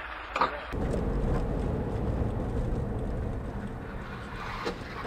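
Steady road and engine rumble from inside a moving car's cabin, starting abruptly about a second in, with a couple of faint knocks near the end.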